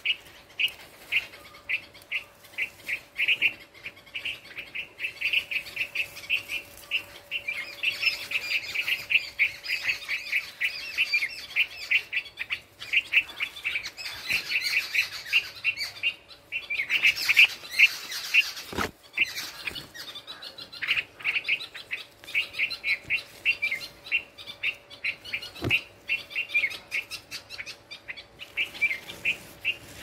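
Nestling songbirds chirping continuously, a fast stream of short high chirps, several a second, loudest around the middle. Two sharp knocks come partway through, over a faint steady hum.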